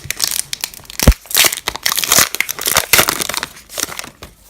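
Crinkling and crackling of a Pokémon booster pack's foil wrapper being handled and torn open, with one sharp thump about a second in.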